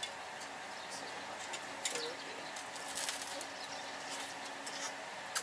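Light clicks and taps of cutlery and dishes at a meal, scattered irregularly over a faint steady hum.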